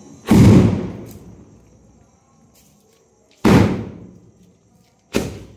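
Three firecracker bangs: one about a quarter second in, one about three and a half seconds in, and a shorter one just after five seconds. Each fades away over a second or so, and the first is the loudest.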